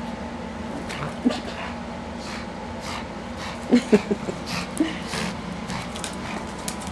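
A pug playing rough with a plush toy, giving a few short vocal sounds through its nose and mouth, the loudest a quick cluster about four seconds in, among scattered light clicks and rustles of the toy and its claws on the tile floor.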